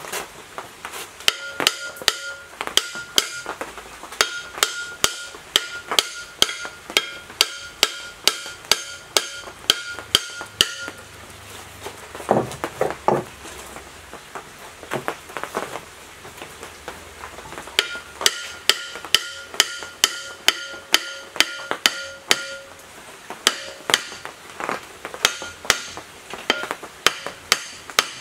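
Hammer tapping the end cover of an electric motor to seat it on the housing: runs of sharp metallic strikes, about two a second, with the metal ringing after each blow, broken by a pause of several seconds midway.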